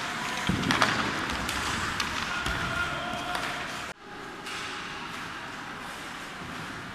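Ice-hockey practice on an indoor rink: sticks clacking against pucks and ice, skates scraping, and children's voices echoing in the arena. About four seconds in the sound changes abruptly to a steadier, quieter rink hum with fewer knocks.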